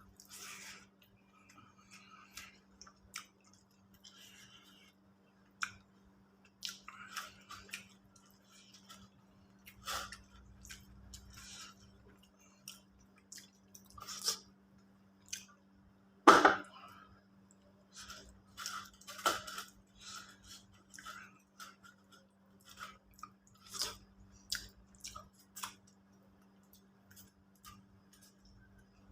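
Close-miked chewing and mouth sounds of someone eating, made of irregular short smacks and clicks, with one much louder sharp knock about sixteen seconds in. A faint steady hum runs underneath.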